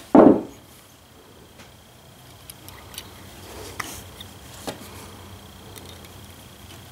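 Small parts of a Ford 2N front-mount distributor being handled and fitted by hand: a short dull thud right at the start, then a few faint, light clicks and taps of small metal parts.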